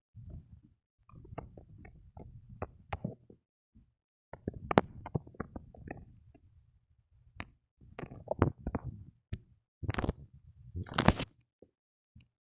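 Close rubbing and rustling against the microphone with sharp clicks, in several bursts a second or two long with short gaps, the loudest clicks near the end.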